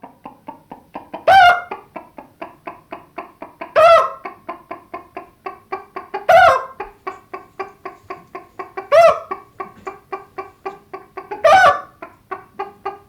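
Chicken clucking in a rapid steady run, about four clucks a second. A loud drawn-out squawk breaks in roughly every two and a half seconds, five times.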